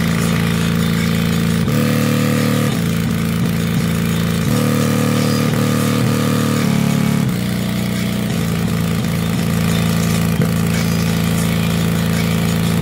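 Bass-boosted music played loud through a JBL Boombox portable speaker in low frequency mode, with a homemade passive radiator pumping; heavy sustained bass notes that step to a new pitch every couple of seconds.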